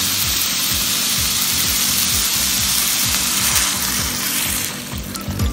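Hot water poured into a ceramic dish of sizzling sautéed tomatoes, chillies and aromatics, giving a steady hissing sizzle that dies down about four and a half seconds in. Background music with a steady beat plays underneath.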